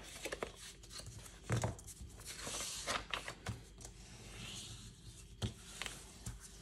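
Bone folder rubbed firmly along the scored folds of card stock to flatten them: faint scraping strokes of paper, with a few light knocks as the card is handled on the table.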